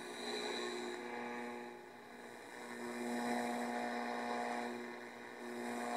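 Philco Sportsman radio's speaker giving hiss and steady humming tones as its AM tuning dial is turned, swelling up twice and fading back. An unrestored set that sounds in need of repair.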